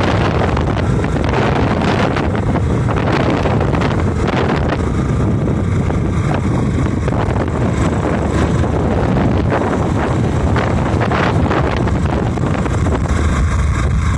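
Loud, steady wind rushing over the microphone of a moving vehicle, mixed with road and engine noise.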